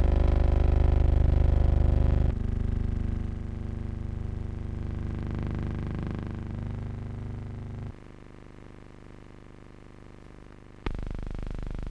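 Background music of sustained chords that change every few seconds, dropping quieter about eight seconds in and then jumping back up suddenly about eleven seconds in.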